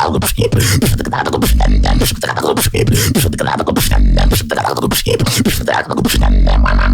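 Solo vocal beatboxing: fast, dense mouth-made percussion with rapid hi-hat-like clicks and snares over deep held bass drops that come in every couple of seconds, with wobbling pitched vocal effects.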